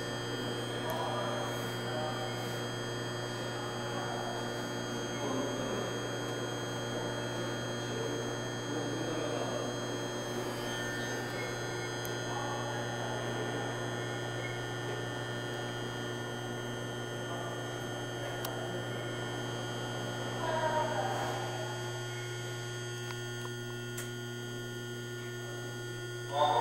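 Steady electrical hum of a Seoul Subway Line 9 train car standing at a station with its doors open, several fixed tones over a low drone, with faint voices now and then.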